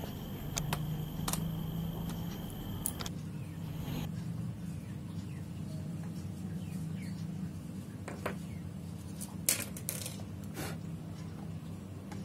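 Scattered light clicks and taps from handling a pry pick and the laptop's bottom cover, with a few close together near the end, over a steady low hum.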